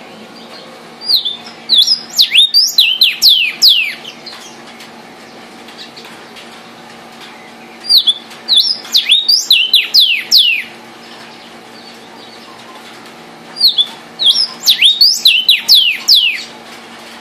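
Vermilion cardinal (cardenal guajiro) singing three phrases a few seconds apart, each a quick run of about a dozen clear whistles that fall steeply in pitch.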